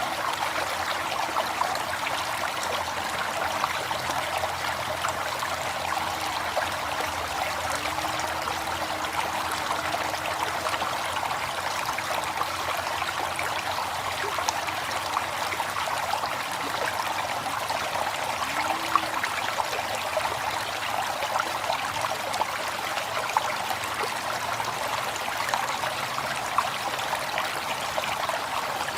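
River water flowing steadily, a continuous rushing with many small splashes and trickles through it.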